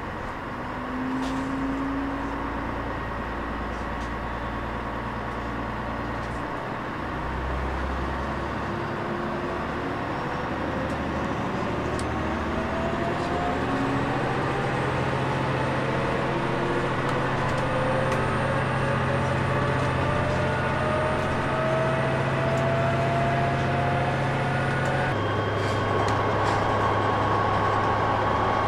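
Diesel railcar (KTR8000 'Tango no Umi') heard from inside the cabin pulling away from a station. The engine hum and a whine climb steadily in pitch as the train gathers speed. About 25 seconds in the engine note steps down suddenly, as the transmission changes stage.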